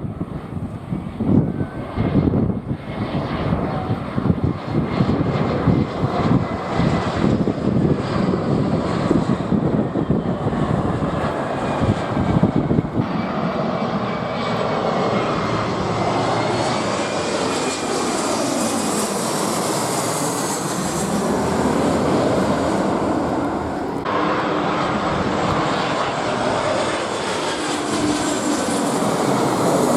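Airliner's engines running loud as the plane passes close by. A choppy, gusting rumble for the first half gives way to a steady roar with a hiss that rises and then falls, and sweeping tones shift in pitch as it goes past.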